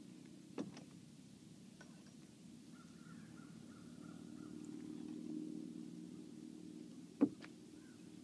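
Quiet early-morning lake ambience with a faint steady low hum, broken by two short sharp knocks, one just after the start and a louder one near the end.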